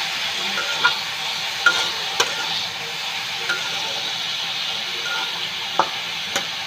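Shredded green papaya sizzling in hot oil as it is stir-fried in a wok, with a metal spatula scraping and clicking against the pan several times.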